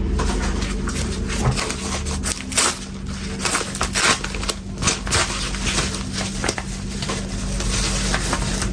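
Parcel packaging being handled and torn open: irregular crackling and crinkling, busiest in the middle, over a steady low hum.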